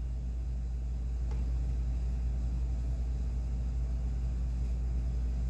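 Steady low hum of room ventilation, with one faint click about a second in.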